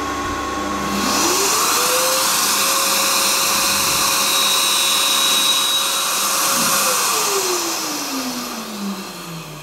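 Tool and cutter grinder motor running up in pitch about a second in, then running steadily with the hiss of a carbide lathe tool bit being ground freehand against the fine diamond wheel. Near the end the motor is switched off and its whine falls steadily as it winds down.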